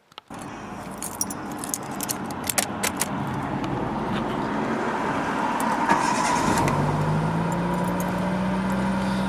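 Fiat Cinquecento petrol engine running at idle with a leaking exhaust, light clicks and jangles in the first few seconds. A steady low hum rises slightly in pitch from about six and a half seconds in.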